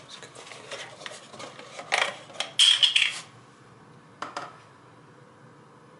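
Kitchen things knocked and clinked on a counter as a milk carton is opened and a ceramic coffee mug is moved: a couple of sharp knocks about two seconds in, then a louder clatter with a brief ringing clink, and two quick knocks a little after four seconds.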